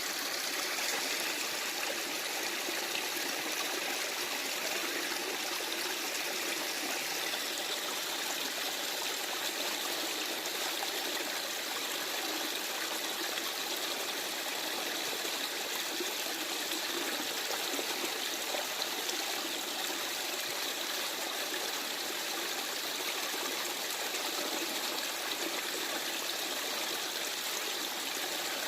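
Small stream running over stones in woodland, a steady babble and trickle of flowing water.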